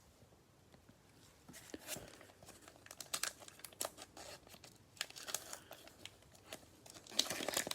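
Cellophane wrapper of a trading-card pack being torn open and crinkled: quick crackles and rips starting about two seconds in, busiest near the end.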